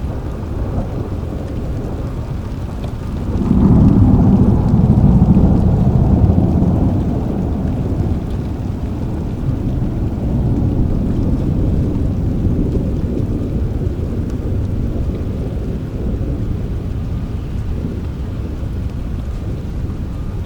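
Steady rain with a low roll of thunder that swells about three seconds in and slowly dies away over the following several seconds.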